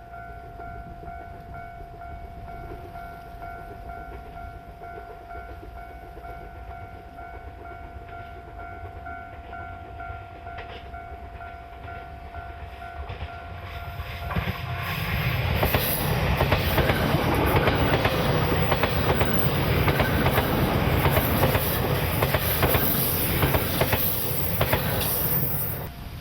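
Railway level-crossing alarm ringing with a steady electronic tone. About halfway through, a train comes through the crossing, and the noise of its wheels clattering over the rail joints swells up and drowns the alarm. The train noise cuts off abruptly just before the end.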